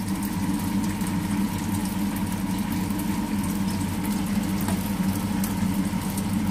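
A steady low hum under a faint crackling sizzle, as noodles and vegetables cook in a wok and lumpia fry in the pan beside it.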